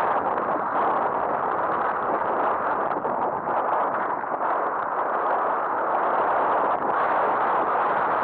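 Mountain bike rolling fast downhill over a loose gravel track: a steady, dense rush of tyres crunching on the stones and the bike rattling.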